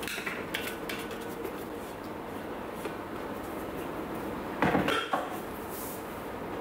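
Spatula scraping and tapping inside a stainless steel Thermomix mixing bowl as sauce is scraped out, with a cluster of louder knocks a little under five seconds in as the metal bowl is handled and set down.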